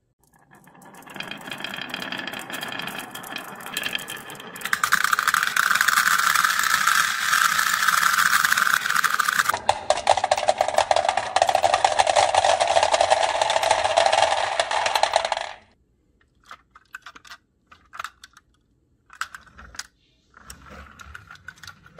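A handful of steel balls rolling down a wooden marble-run track with wavy grooves, a dense continuous metallic rattle and clatter that grows louder about a fifth of the way in and stops suddenly about three-quarters of the way through. After that come scattered single clicks and knocks.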